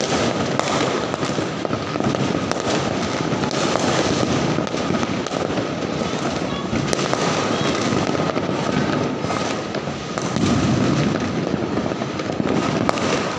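Many fireworks and firecrackers going off at once: a dense, unbroken crackle with sharp pops and bangs scattered through it. It grows fuller and louder for about a second, roughly ten seconds in.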